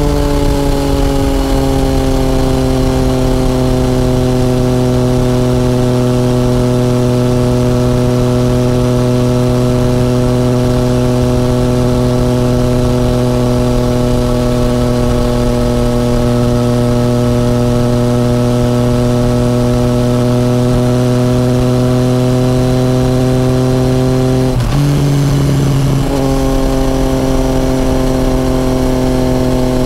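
Yamaha FZ-09's 847 cc inline-three engine running steadily at cruising speed. The note eases down slightly at the start and then holds steady. About 25 seconds in it drops briefly and comes back.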